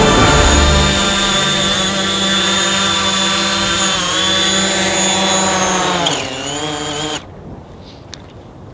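DJI Mavic quadcopter drone hovering low with a steady high propeller whine, then dropping in pitch as it sets down and its motors stop about seven seconds in.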